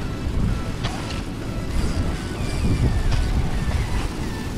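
Wind rumbling on the microphone, with faint short falling chirps repeating above it.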